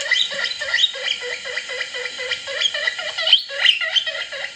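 Recorded guinea pig wheeking played back through a small MP3 player's speaker: a continuous run of short, rising, high-pitched squeals, about three or four a second.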